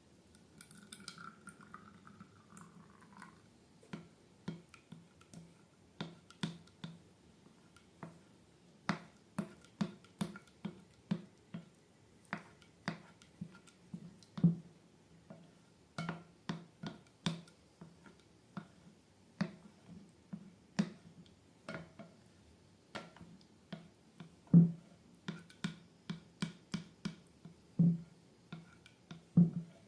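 Slime being squished and worked, giving irregular sticky clicks and air-bubble pops, one to three a second, some much louder than others.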